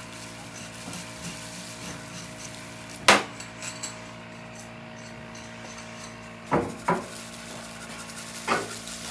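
Kitchen clatter: a few sharp knocks, the loudest about three seconds in, two close together near seven seconds and one more near the end, over a steady low hum.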